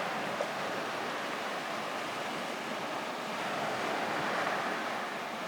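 Lake Superior waves washing on the shore, a steady rushing that swells and eases a little, with one small click just under half a second in.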